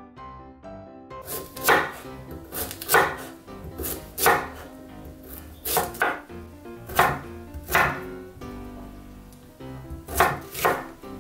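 Chef's knife chopping raw sweet potato on a wooden cutting board: about nine sharp, separate strokes, unevenly spaced, beginning about a second and a half in.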